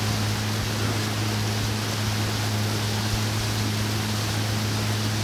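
Motorboat engine running steadily, a low even hum under a constant rush of wind and water noise.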